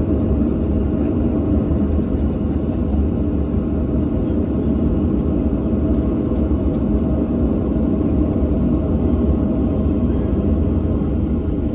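Boeing 737 jet engines running at idle, heard inside the cabin while the airliner taxis to the gate: a steady low rumble with a faint hum above it.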